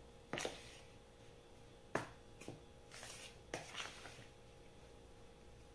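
A metal spoon clicking and scraping against a plastic bowl while mixing flour, sugar, margarine and egg yolk into a crumbly dough. About half a dozen faint, separate clicks and scrapes.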